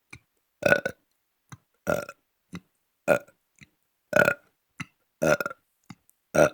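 A person burping over and over: six loud burps at an even pace of about one a second, with faint short sounds between them.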